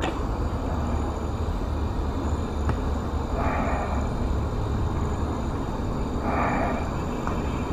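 Outdoor background with a steady low rumble, broken twice by a short harsh sound, about three seconds apart.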